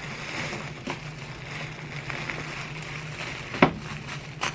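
Handling noises from packing an appliance: a few sharp knocks, the loudest about three and a half seconds in, over a steady low hum.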